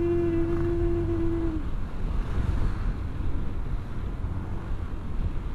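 A long held musical tone stops about a second and a half in, leaving the steady rumble of wind on the microphone and road noise from a moving motorcycle with a stock exhaust.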